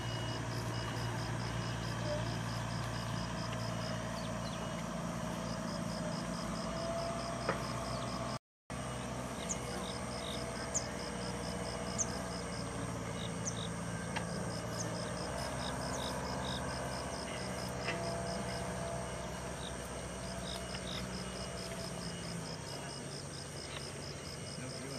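A steady low motor hum under rapid, high pulsed chirping that comes in repeated trains, with a few short high whistles from about nine seconds on. The sound drops out for an instant about eight and a half seconds in.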